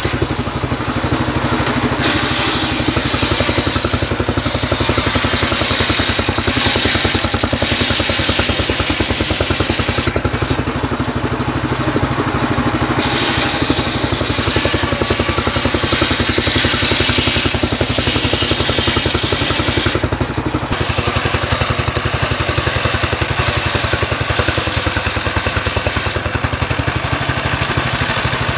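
Stationary diesel engine running steadily, belt-driving a homemade circular saw that is ripping a trembesi log lengthwise into planks. The high rasp of the blade in the wood drops away briefly about ten seconds in, again around twenty seconds, and near the end, leaving the engine's even chug and the spinning blade.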